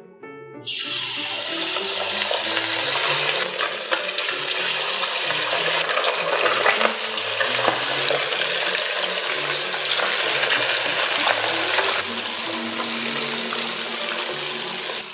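Chicken wings going into very hot deep-frying oil in a wok: the oil starts sizzling loudly about half a second in, a steady hiss with scattered crackling pops that eases slightly near the end.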